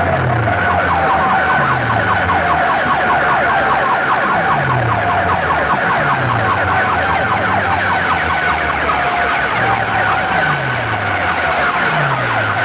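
Competition DJ sound-box speaker stacks playing loud siren-style electronic sound: a siren-like wailing tone over rapid pulsing upper notes, with a deep bass sweep falling every second or two.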